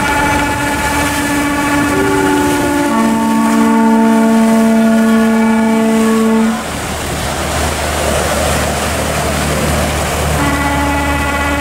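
Boat horns blowing long, steady notes, a second, lower horn joining about three seconds in; both stop together about six and a half seconds in, leaving the rush of churning water and a low engine rumble, and a horn sounds again near the end.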